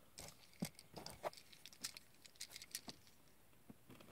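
Small plastic Transformers Bot Shots Lockdown figure being picked up and turned in the fingers: a string of faint clicks, taps and light rustles, the loudest about half a second in.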